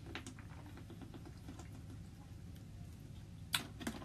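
Faint small clicks and ticks of a man drinking from a plastic water bottle, with a brief louder sound about three and a half seconds in.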